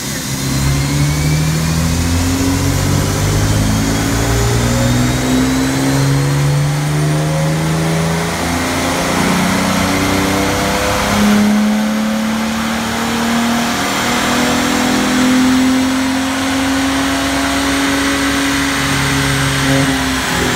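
Toyota Tacoma X-Runner's 4.0-litre V6, breathing through a TRD cold air intake and a Flowmaster Super 44 muffler, revving up under load in a chassis dyno power run. Its pitch climbs in steps, with a brief dip about eleven seconds in, over a thin high whine that rises steadily.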